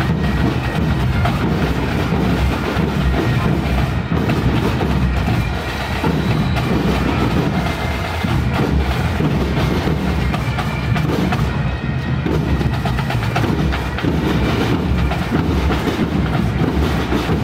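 Marching drum corps playing snare drums and bass drums together in a steady march cadence.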